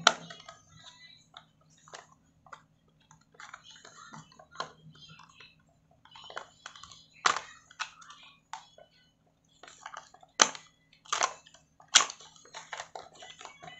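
Thin cardboard box being opened and handled: rustling and scraping of the card with scattered sharp clicks and taps, the loudest snaps about seven, ten, eleven and twelve seconds in, as the inner display container is worked out of the box.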